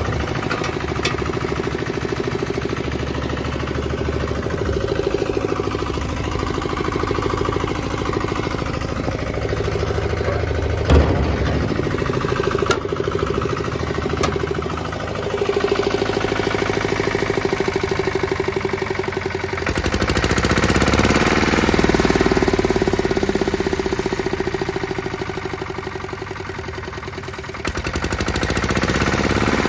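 Lombardini LDA 96 single-cylinder air-cooled diesel engine of a Goldoni Export 16 HP motocultor running steadily with an even knocking beat. A couple of short knocks come near the middle, and the engine grows louder about two thirds in.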